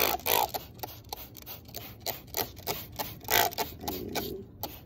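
Hand-held trigger spray bottle squirting water onto potting soil: a quick series of short squirts, the loudest at the start and about three and a half seconds in.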